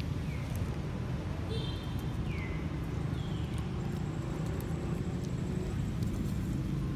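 Outdoor ambience: a steady low rumble with four short, high chirps that fall in pitch, from animals, in the first few seconds.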